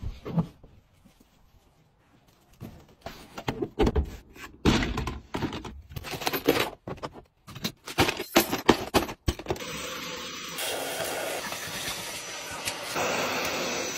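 Irregular knocks and clatters of hard items being handled, then a vacuum cleaner running steadily through its crevice nozzle for the last four seconds or so.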